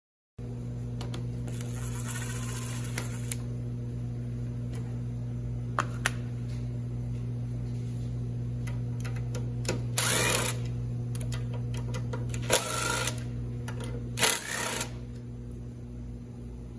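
A ratchet with a 5/16 socket clicks in several short runs, backing out the bolts of a lawn mower's air filter base, with a few single clicks of metal parts being handled. A steady electrical hum runs underneath.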